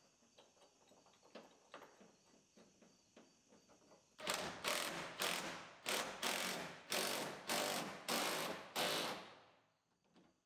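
Faint clicks of a metal clamp being handled, then a red cordless power tool spinning a socket on an extension in a series of short bursts for about five seconds, tightening the clamp that holds a truck cap down onto the bed rail.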